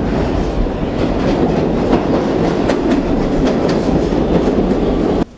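New York City subway train running on the rails, a loud steady rumble with wheels clacking over rail joints; it cuts off suddenly near the end.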